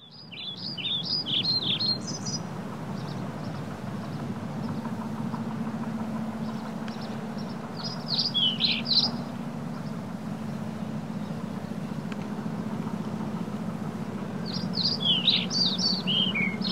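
A songbird singing three short phrases of quick, falling high notes, spaced about six to seven seconds apart, over a steady low hum.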